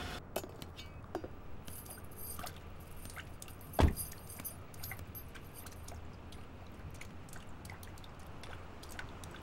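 A car door shutting with one solid thud about four seconds in, after a few seconds of light clicks and high metallic jingling.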